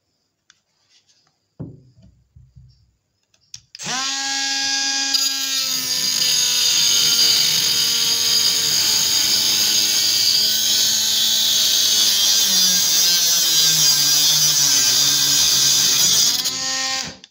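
Bosch Professional 12 V brushless cordless mini angle grinder starting about 4 s in and running with a steady high whine. Between about 12 and 15 s its pitch dips and wavers as the disc bites into the copper pipe, and it is switched off just before the end.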